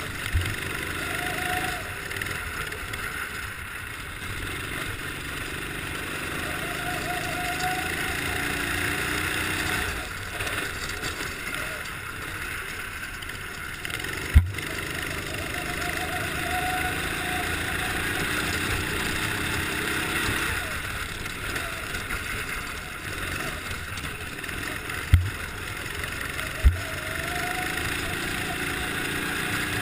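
Racing kart engine heard from an onboard camera, revving up and dropping back again and again as the kart laps, over a steady rush of wind and snow noise. Four sharp knocks, the loudest about halfway through and two close together near the end.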